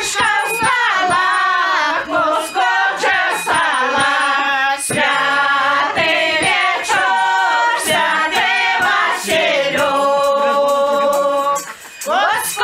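A small group of village women singing a Belarusian Shchadrets carol (shchedrovka) for St. Vasil's Eve in harmony, without instruments. They hold a long chord about ten seconds in, breathe briefly near the end, and go on singing.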